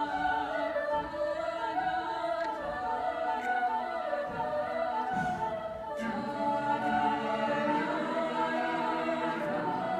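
Mixed choir singing, the voices holding sustained chords; lower voices come in more strongly about halfway through.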